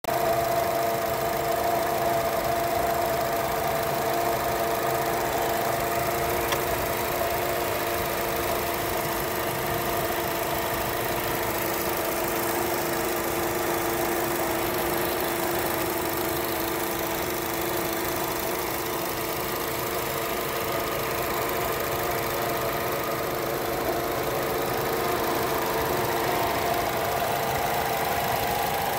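A 2014 Chevrolet Sonic's 1.4-litre turbocharged four-cylinder engine idling, with a steady hum that the owner traces to the top front of the engine.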